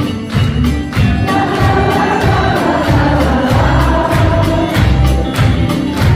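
Live pop band playing with a female lead vocal and backing vocal: drum kit, bass, electric guitars and keyboard under a steady beat.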